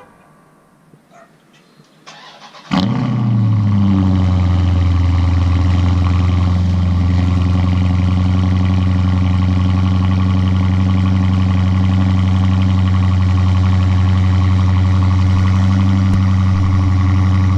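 2017 Dodge Charger Scat Pack's 6.4-litre (392) HEMI V8 starting about three seconds in, with a brief flare that drops and settles into a loud, steady idle.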